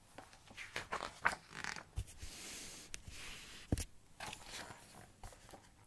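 Pages of a large picture book turned and handled: faint paper rustling and scraping, with two soft thumps, one about two seconds in and one just before four seconds.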